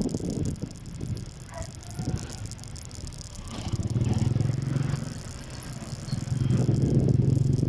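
Motorcycle engines running on the move, with low rumble from wind and road on the microphone. A steady engine drone swells about four seconds in, fades, and comes back louder near the end.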